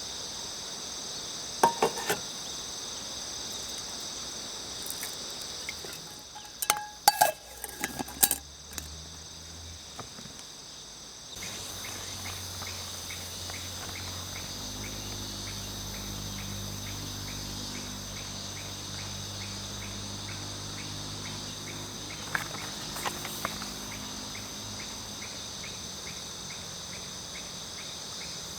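Insects, crickets among them, chirping steadily. Metal utensils clink on camp cookware in a few sharp clicks about two seconds in and again around seven to eight seconds in. A low hum comes in about halfway through.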